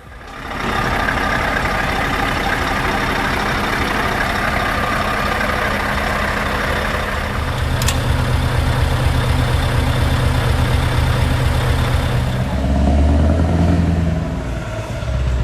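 Heavy truck engine running steadily, its low note changing about seven seconds in and again near the end.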